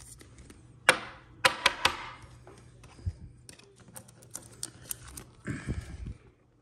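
Trading cards being handled on a tabletop: a cluster of sharp taps and clicks about a second in, lighter scattered clicks after, then a short rustle near the end.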